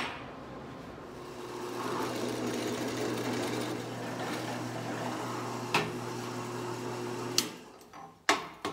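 Drill press running with a steady motor hum, its bit cutting through a steel plate clamped in the vise. The motor stops about seven and a half seconds in, followed by a few sharp metallic clinks as the chip-covered plate is handled.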